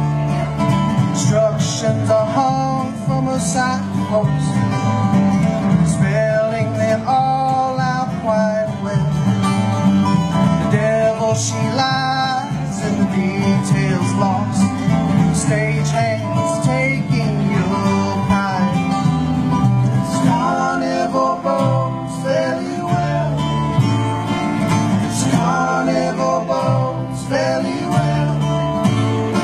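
Acoustic bluegrass trio playing a tune: two acoustic guitars picking over a plucked upright bass line.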